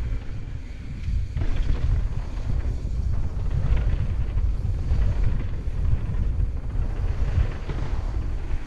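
Wind buffeting the microphone as a heavy, fluctuating low rumble, with a few brief rattles mixed in.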